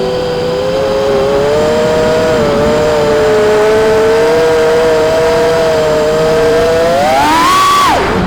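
FPV quadcopter's electric motors whining steadily at a few close pitches. Near the end the pitch climbs sharply as the throttle is punched, then drops abruptly as it is cut.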